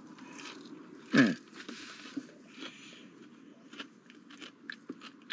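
Close-up chewing of a breaded chicken tender: soft crunches and wet mouth sounds. There is a short hum from the eater about a second in.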